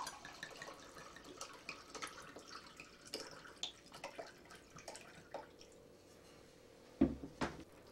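Tawny port trickling and glugging out of a wine bottle into a glass measuring cup, in faint irregular splashes, then two short knocks near the end.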